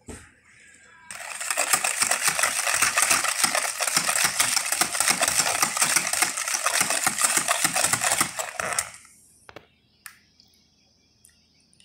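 Wire whisk beating a thin liquid in a plastic bowl: a fast, continuous clatter of the wires against the bowl, starting about a second in and stopping about two seconds before the end, followed by a couple of light knocks.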